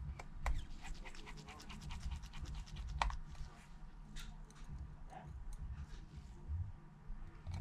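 Rapid run of small, sharp clicks and ticks from small hand tools and parts as an iPhone 8 is closed up after a screen replacement. The clicks are densest in the first few seconds, with one louder click about three seconds in.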